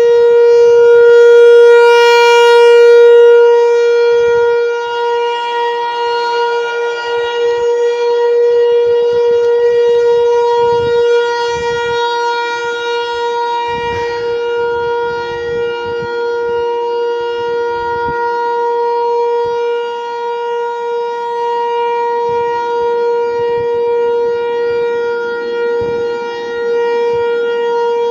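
American Signal Corporation T-128 outdoor warning siren sounding its steady alert tone on a monthly test: one loud, unbroken wail at a fixed pitch with many overtones, its loudness wavering slightly.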